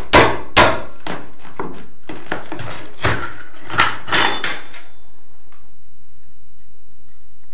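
Hammer blows on a steel mason's chisel chipping up ceramic floor tile, two sharp strikes in the first second. From about three seconds in come lighter knocks and clinks as broken tile pieces are lifted away, one with a brief metallic ring.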